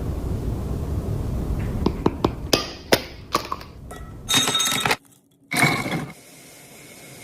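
A low rumble, then a quick series of sharp clinks and taps of dishware and utensils, followed by a brief scraping, ringing stretch and one more short burst.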